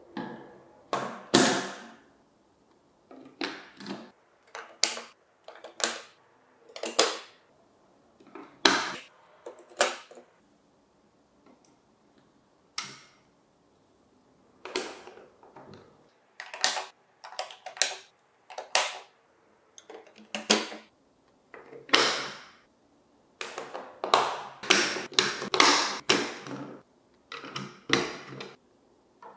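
Hard plastic clacks and rattles from the pieces and marbles of a VTech Marble Rush marble run, coming one at a time at uneven intervals, with a few quiet seconds in the middle and quick clusters of clacks later on.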